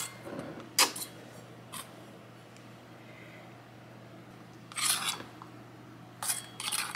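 Full glass mason jars being handled on a wooden tabletop: a few short knocks and clinks, with one longer scrape about five seconds in, over a faint steady low hum.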